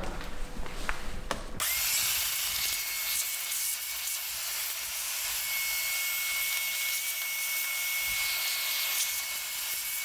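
Vacuum cleaner switched on about a second and a half in, running with a steady high whine as it sucks dust out of the air conditioner's interior.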